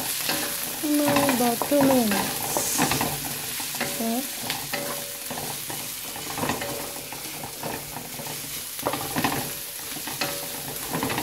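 Diced red onion, garlic and ginger sizzling in hot oil in a metal frying pan, stirred with a spatula that scrapes and taps against the pan again and again.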